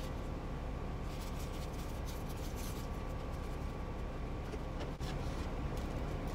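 Steady low hum of a truck cab with its air conditioning running, with light clicks and rustles of food being handled and assembled.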